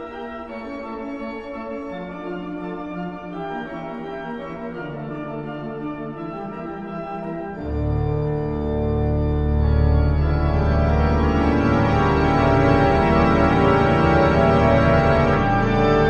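Instrumental theme music of held keyboard chords that change every second or two. About eight seconds in a deep bass comes in and the music grows louder.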